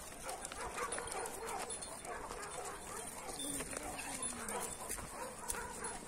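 Dogs faintly whining and barking, with a low gliding whine a little after three seconds in.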